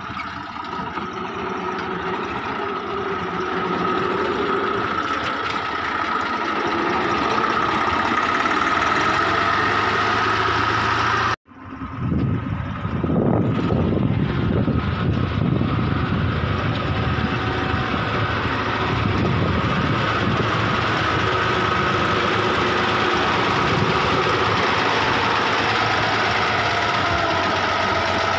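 Kirloskar tractor diesel engine running steadily under load through a homemade jugaad silencer while pulling a cultivator. The sound cuts out abruptly for a moment about eleven seconds in, then the engine returns.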